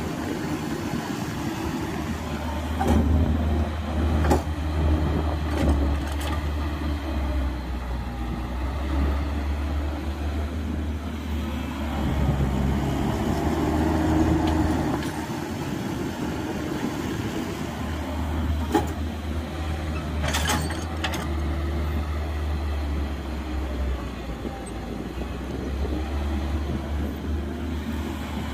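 Heavy diesel machinery of an excavator loading dirt into a dump truck, running steadily. The low engine drone swells and eases several times as it works. Occasional sharp knocks and clanks come through, a cluster of them about twenty seconds in.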